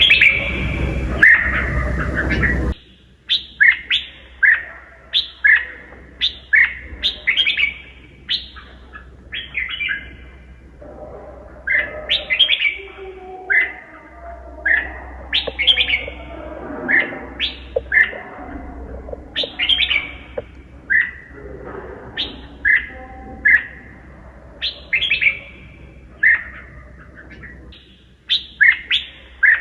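Red-whiskered bulbul singing: bursts of short, bright whistled notes that slur downward, repeated in quick clusters. The first few seconds sit over loud background noise that cuts off abruptly, after which the song continues over a quiet background.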